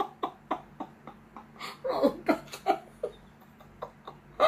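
A woman laughing with her hands over her mouth, in a string of short bursts about four a second, strongest about two seconds in and again right at the end.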